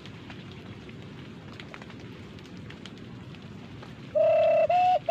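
Steady rain falling on the leaf hideout. About four seconds in, two loud notes at a steady pitch, blown by the hunter with his hands at his mouth: a bird call to lure birds within range of the air rifle.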